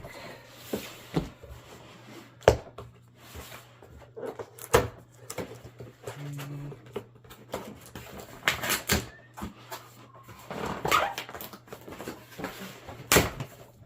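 A cardboard retail box being opened and its packaging handled: scattered knocks and taps with bursts of cardboard and plastic rustling. A short low hum-like sound comes about halfway through, over a faint steady hum.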